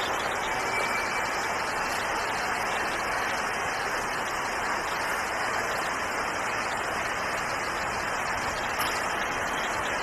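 A steady rushing hiss of background noise with no distinct events.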